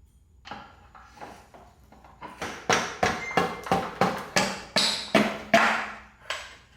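A steady series of sharp knocks, about three a second, faint at first and much louder from about two seconds in.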